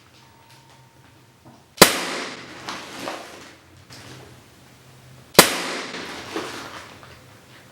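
Two sharp shots from a multi-pump pellet gun, pumped ten times with helium instead of air, fired about three and a half seconds apart. Each shot is followed by a decaying ring and a smaller knock.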